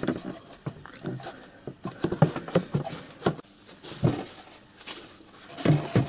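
Handling noises: clicks and clunks as a pipe fitting is connected inside a wooden box, then knocks as a padded seat lid is set down onto the box, loudest near the end.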